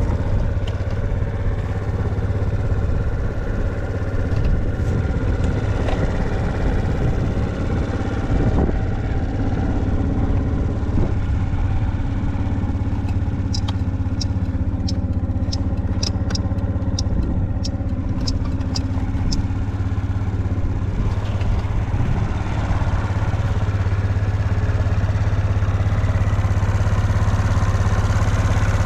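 Suzuki Let's 4 scooter's 50 cc four-stroke single-cylinder engine idling steadily, running evenly with no abnormal noise after its recall repair. Midway comes a run of about a dozen sharp ticks, roughly two a second.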